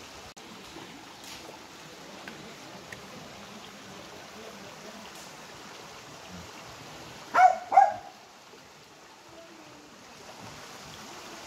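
Small waterfall and stream running steadily over rock. About seven seconds in, a dog barks twice in quick succession, the loudest sounds here.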